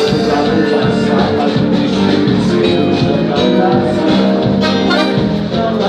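Live band playing amplified music, held instrumental notes over a steady beat.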